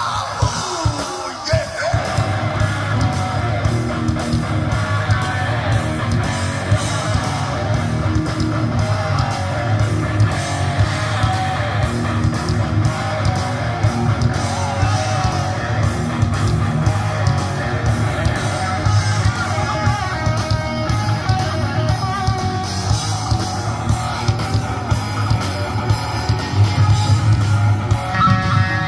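Live rock band playing loud, guitar to the fore, heard from among the audience.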